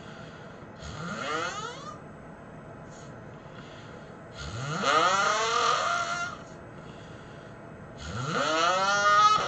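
A person snoring: three snores about three and a half seconds apart, each a pitched snore that glides upward in pitch, the first shorter and weaker and the later two louder.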